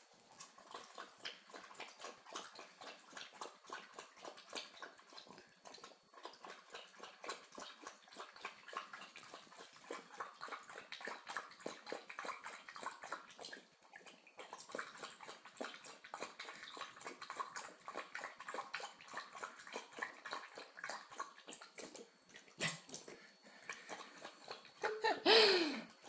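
Dog lapping water from a plastic bowl: a long, steady run of quick, wet laps. Near the end comes a short, louder splashing sound with a falling pitch as the dog pushes its muzzle into the water.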